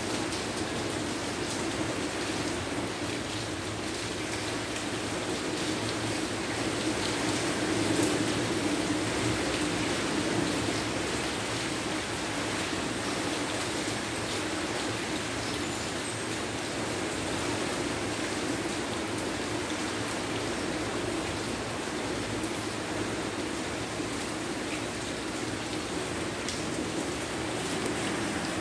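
Heavy rain falling steadily as a continuous hiss, swelling slightly about eight seconds in.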